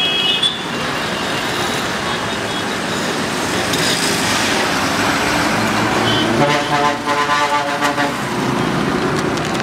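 Busy road traffic: engines and tyres of passing buses and trucks, a steady loud rumble and hiss, with a vehicle horn sounding for about a second and a half about six and a half seconds in.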